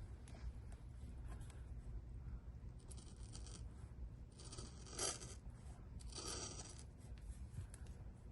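Excess rubber tire-plug strip being cut off at the tread: a few short rasping, scraping cuts, the loudest about five seconds in, over a faint low hum.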